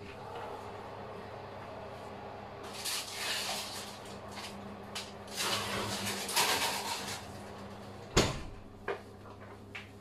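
Metal roasting pan scraping as it is pushed onto the rack of a hot oven, then the oven door shutting with a sharp clunk about eight seconds in, followed by a couple of lighter clicks, over a steady low hum.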